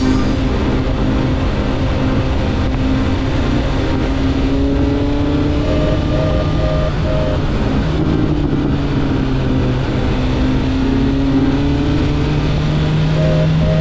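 BMW S1000R inline-four engine running at road speed with a steady rush of wind. The engine note changes about halfway through and then rises slowly.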